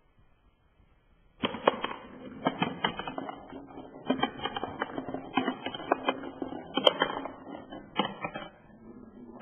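A ball rolling and clattering down a cardboard zigzag ramp, knocking against its wooden stick guides. It is a rapid, irregular run of clicks and knocks over a low rolling rumble, starting suddenly about a second and a half in.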